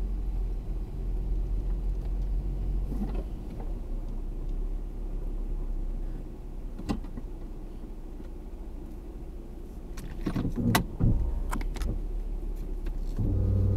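Car engine running steadily at low speed as the car pulls into a parking space and stops, heard from inside the cabin. A click comes about seven seconds in, and a cluster of clicks and rattles about ten seconds in.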